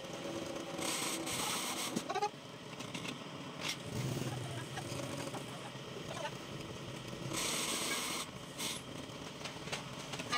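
Pillar drill press running, its twist bit cutting through a steel flange with a steady grinding noise, and two short stretches of louder, higher-pitched cutting noise, about a second in and again about three quarters of the way through.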